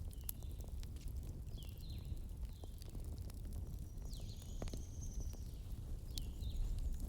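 Campfire burning with scattered sharp crackles and pops over a low steady rumble, while a bird calls several times in short, falling chirps.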